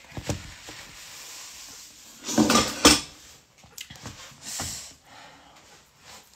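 Kitchen handling noises: a scraping rustle about two and a half seconds in that ends in a sharp knock, then a few lighter clicks and a short rustle.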